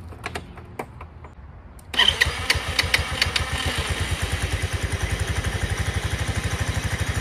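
A few sharp clicks, then a 150cc Chinese motor scooter's engine starts about two seconds in and settles into a steady idle.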